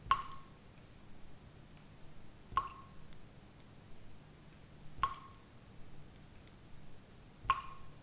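Water droplets dripping at a steady rhythm: four drips about two and a half seconds apart, each a sharp drip with a short ringing tone.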